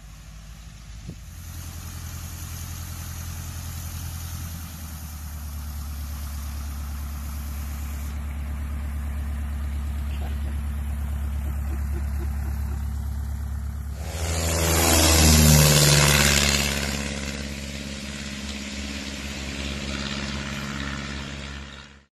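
Single-engine light plane's piston engine and propeller as it rolls out and taxis on a grass strip: a steady low drone that grows louder, is loudest about fifteen seconds in with a rush of propeller noise as the plane passes close, then settles lower before cutting off at the end.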